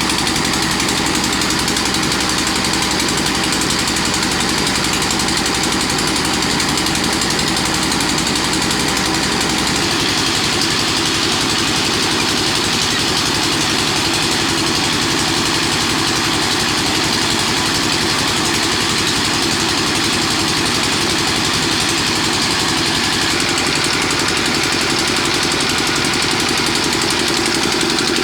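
Old Petter stationary diesel engine running steadily, with a fast, even knocking beat.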